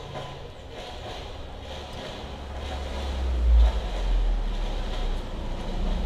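A kitten eating rice off a plastic sheet, with faint chewing and plastic rustling. Under it, a low rumble swells a little past halfway, peaks, then eases off.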